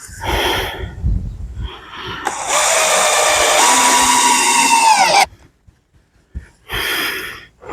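A power drill running for about three seconds, its pitch dropping just before it stops abruptly. Shorter bursts of noise come before and after it.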